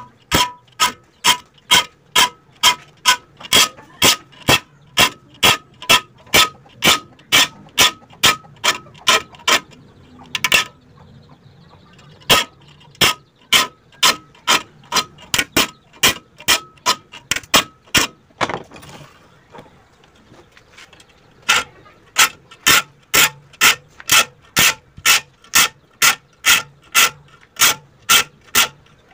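Sharp mechanical clicking at an even pace of about three clicks a second, each click with a short metallic ring. It stops twice for a couple of seconds and starts again.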